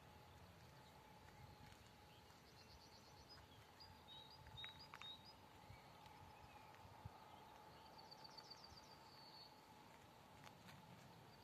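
Near silence: quiet outdoor ambience with faint bird calls, including a short rapid trill about two and a half seconds in and another around eight seconds.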